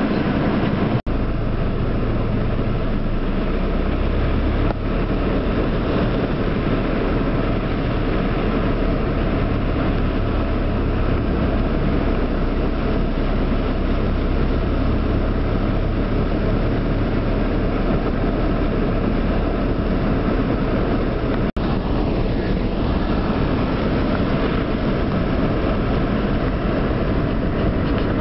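Steady noise inside a car driving through heavy rain: rain on the roof and windshield, tyres running through standing water and a low engine rumble. The sound cuts out for an instant twice.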